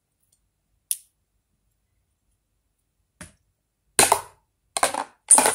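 Sharp snaps from a fidget toy being flicked and swung. A faint one comes about a second in and another near three seconds, then three louder ones in quick succession near the end.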